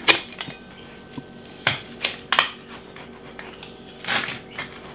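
Rolling pizza cutter crunching through a crispy pizza crust and scraping the metal pizza pan in a few short, sharp strokes: one at the start, three close together about two seconds in, and a longer one about four seconds in.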